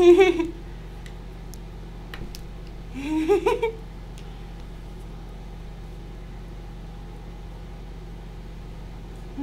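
A cat meowing twice, a drawn-out 'browww' right at the start and another about three seconds later that rises in pitch, with a few faint ticks between them over a steady low hum.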